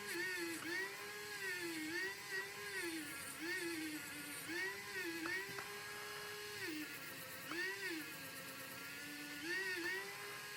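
A small motor whining. Its pitch rises and falls in repeated swells about once a second, with a few steadier stretches where it holds one pitch.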